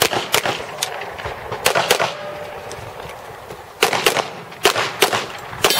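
Handgun shots fired in quick pairs and short strings, about a dozen in all, with a pause of about a second and a half in the middle.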